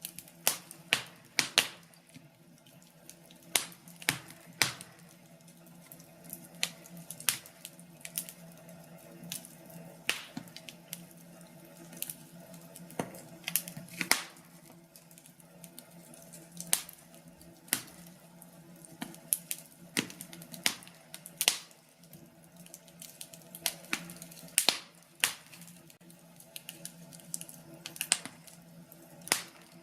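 Wood fire crackling in a fireplace: irregular sharp pops and snaps, a few each second, over a faint steady low hum.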